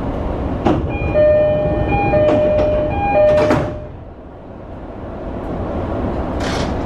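The cab of an E231-series electric train under way, with its running noise, while a two-tone electronic warning chime repeats for about three seconds: the ATS-P alarm for a temporary 35 km/h speed limit. Two short hissing bursts come about three and a half seconds in and again near the end.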